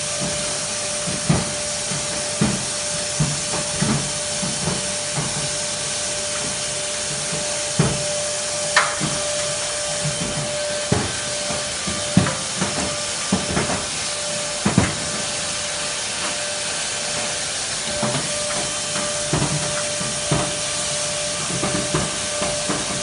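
Duct-cleaning equipment running inside a sheet-metal air duct: a loud, steady rush of air with a faint steady whine, and irregular knocks and taps as the hose strikes the duct walls.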